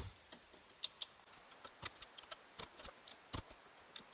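Scattered light clicks and taps of a small torque wrench being worked around the steering-hub bolts, checking them at 6 Nm.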